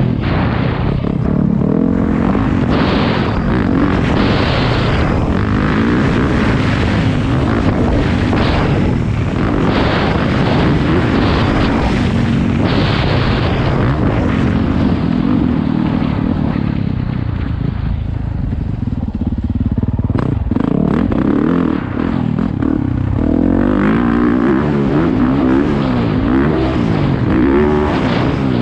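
Off-road motorcycle engine revving up and down as the bike is ridden hard, its pitch rising and falling with the throttle. The throttle eases off for a few seconds about two-thirds of the way through, then the revving picks up again.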